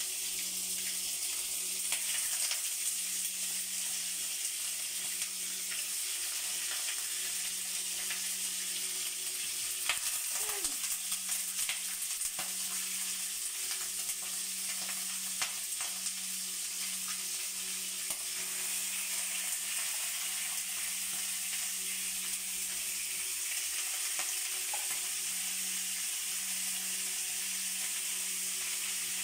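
Chicken pieces sizzling as they fry in hot oil in a nonstick wok, a steady hiss through the whole stretch. Occasional sharp clicks and taps as more pieces are dropped in with metal tongs, over a steady low hum.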